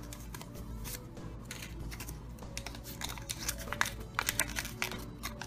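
Folded paper leaflet from a Kinder Surprise toy capsule crinkling in the hands as it is unfolded, many short crackles.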